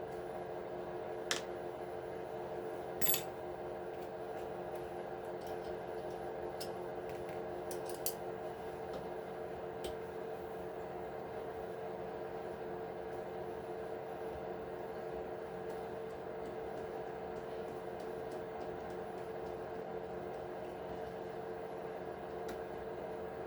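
A steady hum with a few sharp clicks of small tools and plastic RC truck parts being handled, the clearest two about one and three seconds in.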